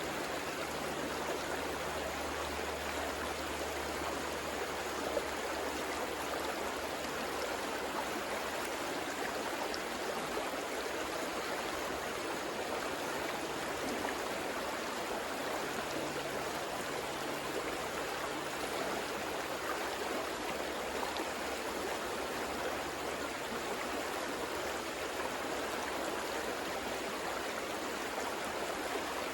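River water rushing steadily over stones, an even unbroken flow.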